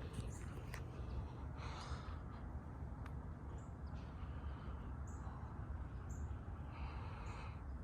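Short high bird chirps, about one a second in the second half, over a steady low rumble.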